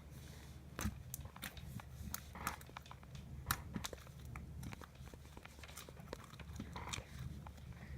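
Slime being squeezed and poked by hand, giving faint, irregular little clicks and crackling pops.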